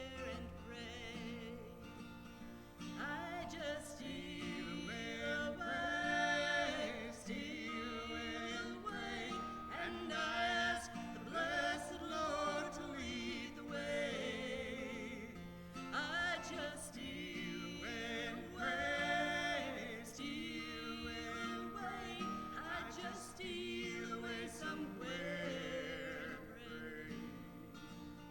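A song performed by singing voice with acoustic guitar accompaniment.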